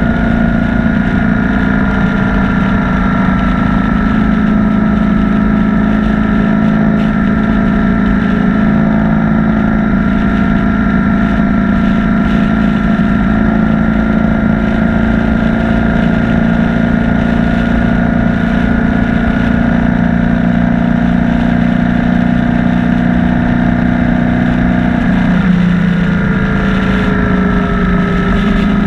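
BMW R1200 motorcycle's flat-twin boxer engine running at a steady speed on the road. About 25 seconds in, the engine note drops in pitch and then holds lower.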